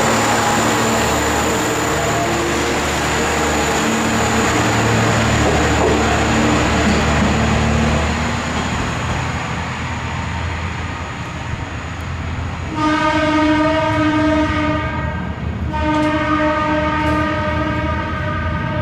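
Kanto Railway Joso Line diesel railcar running, its engine a steady low hum, then sounding its horn twice: one long blast about two-thirds of the way through and a second one a second later, lasting to the end.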